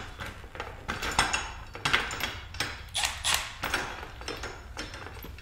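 Irregular light metallic clinks and knocks as a bicycle front wheel and its loosened axle nuts are handled and worked out of the fork, with the loudest knocks about a second, two seconds and three seconds in.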